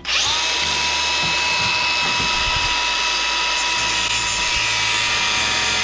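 A handheld power tool spins up and runs at a steady high speed with a steady whine, cutting a section out of a piece of material.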